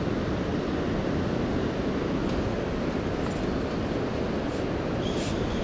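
Steady rushing noise of river water pouring out below a dam, with some wind on the microphone and a few faint ticks near the end.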